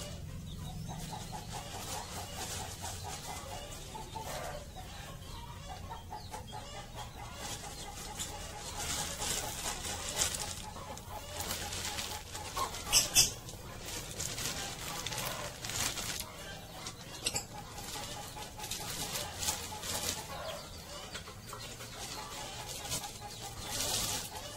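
Chickens clucking, with a repeated pulsing call that comes and goes. Several brief rustling hisses break in, the loudest a sharp one about thirteen seconds in.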